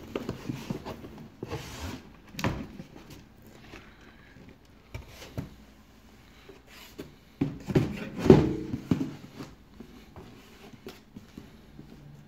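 Cardboard being handled: a shoebox shifted and pulled out of a corrugated shipping carton, with irregular scraping and knocking of cardboard on cardboard. The loudest bump and scrape comes about eight seconds in.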